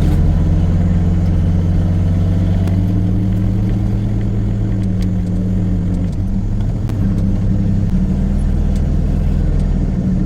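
Engine of a farm buggy (utility vehicle) idling steadily, its low hum shifting pitch slightly a couple of times.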